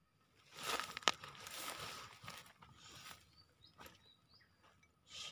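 Dry grass and brush rustling and crackling as someone pushes through tall vegetation, loudest from about half a second to three seconds in, with one sharp crack near one second and a few lighter crackles later.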